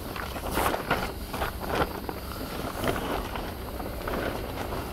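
Black plastic cover crinkling and rustling in irregular bursts as it is handled and pulled over, with a low rumble of wind on the microphone.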